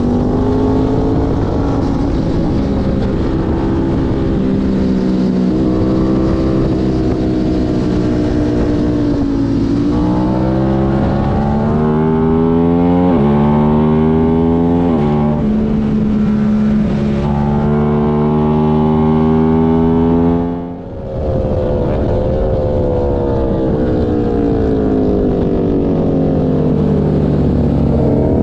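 Onboard sound of an Aprilia sport bike's engine at hard throttle on track, its pitch climbing and dropping back in steps with each upshift, with wind rush. About two-thirds of the way in the throttle shuts and the sound dips briefly, then the engine note falls slowly as the bike slows.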